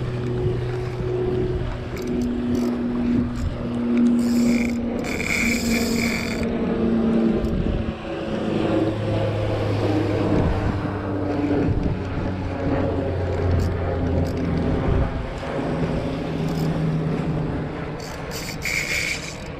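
Shimano Twin Power spinning reel being cranked under load while fighting a fish, its gears humming in a steady tone that shifts up and down in pitch as the winding speed changes. Two short hissing bursts come about five seconds in and near the end.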